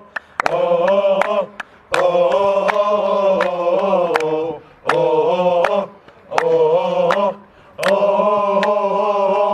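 A group of men chanting a football supporters' song together in short phrases with brief breaks, over sharp hand claps.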